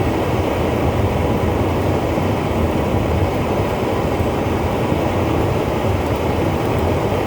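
Homemade forge burner fed by a small electric blower, burning steadily on its test fire: a loud, even rushing flame with the blower's air behind it.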